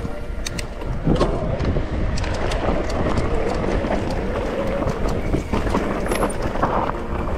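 Mountain bike ridden over rough trail, heard from a rider-mounted camera: a steady rumble of wind and trail noise on the microphone, with frequent clicks and knocks from the bike rattling over the ground.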